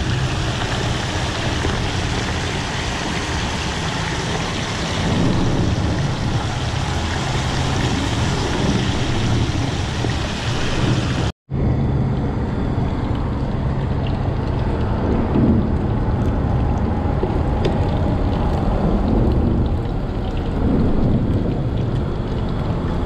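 Fish deep-frying in a pot of hot oil on a portable propane camp stove: a steady sizzle, with a low rumble beneath it. The sound breaks off for an instant about halfway through and then carries on slightly duller.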